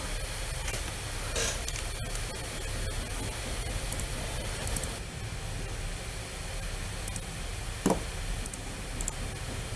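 Steady hiss of background noise from the recording microphone, with a few faint short clicks scattered through it.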